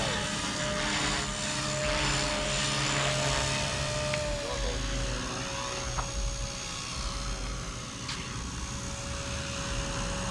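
Blade Fusion 180 electric RC helicopter in flight: a steady motor and rotor whine that dips briefly in pitch about four and a half seconds in.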